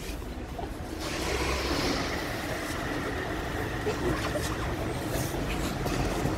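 A large flat-pack cardboard box scraping and knocking as it is pushed into the back seat of a car, over a steady low rumble.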